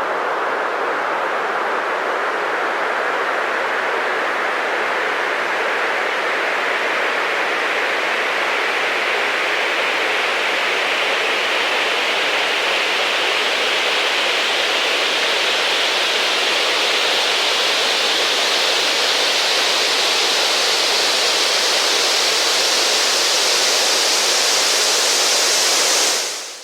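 White noise sweep sound effect: a long, steady rush of filtered noise whose pitch slowly rises and gets slightly louder as it builds, then cuts off quickly at the end.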